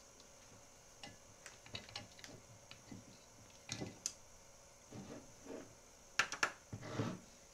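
Light, scattered clicks and taps of a small metal assembly and a hand tool being handled, with a run of louder clicks about six seconds in.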